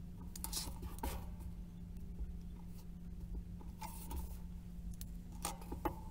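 Light handling sounds at a cutting table: a clear plastic ruler shifted across a cutting mat, a pen marking, and sheer dress fabric rustling, heard as a few short scrapes and rustles about a second in, around four seconds in and near the end, over a steady low hum.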